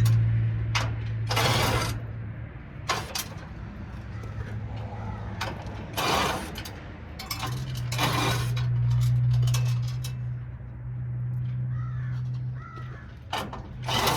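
A small power tool's motor runs steadily in two long spells while loose metal parts clink and clatter: nuts, washers and hardware being taken off a parking lot light fixture.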